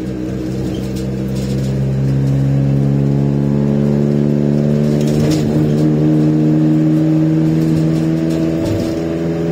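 Iveco Daily 35-8 diesel van's custom-fabricated exhaust drumming while the van is driven, heard through the open cab window. It swells over the first two seconds into a steady drone with several pitches that holds to the end.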